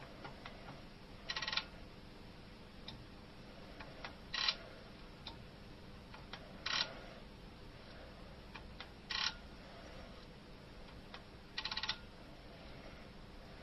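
Hand-worked rocking microtome cutting sections: five short ratcheting clatters from its mechanism, about every two and a half seconds, one with each stroke of the operating handle.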